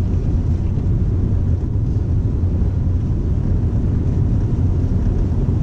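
Steady low rumble of a car driving on a snow-covered road, heard from inside the cabin: engine and tyre noise with no distinct events.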